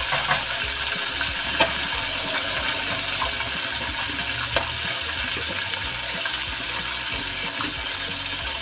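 Chicken wings sizzling as they deep-fry in hot oil in a saucepan: a steady crackle, with a couple of sharper pops.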